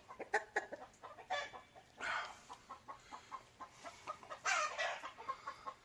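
Chickens clucking: a run of short clucks with a couple of longer squawks about two seconds and four and a half seconds in.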